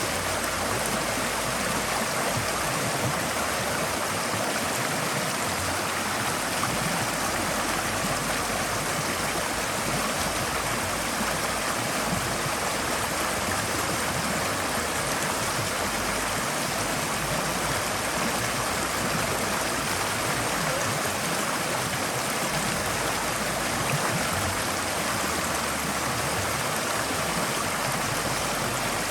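Forest stream flowing steadily over rocks: a continuous, even rush of water with light gurgling.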